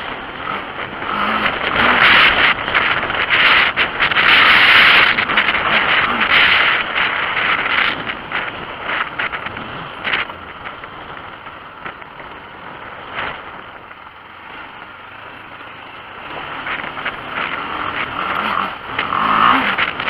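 Motorcycle riding a loose gravel dirt track: engine running with brief rises in revs near the start and the end, tyres over stones, and wind rushing over the microphone. It is loudest in the first several seconds and eases off past the middle.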